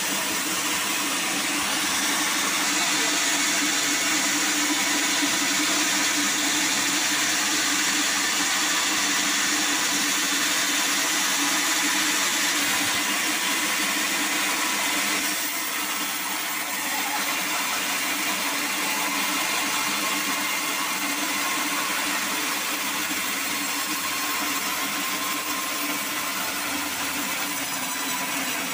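Band sawmill blade running and cutting through a black acacia log: a steady mechanical whine with a high hissing of the cut. The high hiss eases a little about halfway through.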